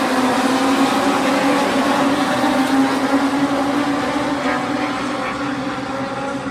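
A pack of race cars running together on the straight, their engines making a steady drone that slowly fades over the second half as they pull away.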